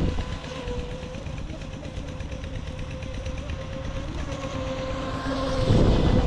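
UDI Arrow RC speedboat's brushless motor, on a stock 3S battery with a CNC 44 propeller, running with a steady whine. A louder rush of noise comes in near the end.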